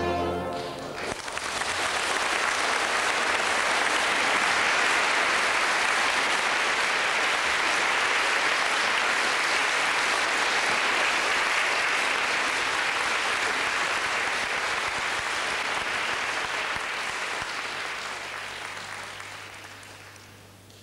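An orchestral chord ends in the first second, then audience applause starts, runs steadily and fades out near the end.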